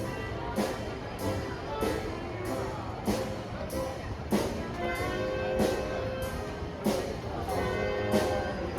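Music with a steady beat of about one drum hit every 0.6 seconds under held orchestral instrument notes.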